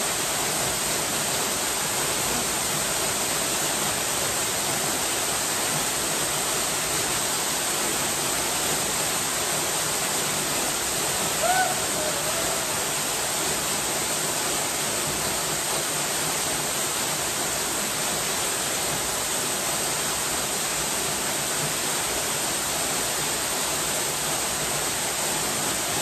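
Partly frozen waterfall pouring steadily into a shallow pool, an even rush of falling water. A brief squeak about halfway through.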